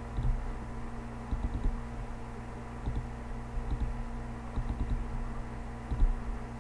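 Computer keyboard taps and mouse clicks in short clusters every second or so, over a steady low electrical hum.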